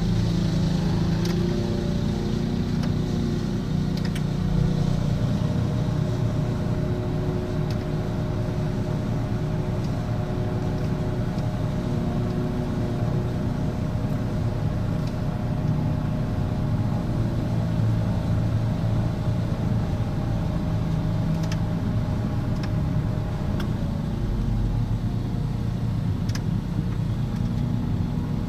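Single-cylinder Honda GXV160 mower engine running steadily at a constant speed, with a few sharp ticks scattered through.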